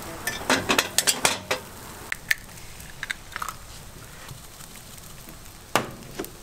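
Clattering of metal utensils and cast-iron fish-shaped bungeoppang moulds: a quick run of sharp clinks and knocks in the first second and a half, a few lighter taps after, and two more knocks near the end, over a faint steady hiss.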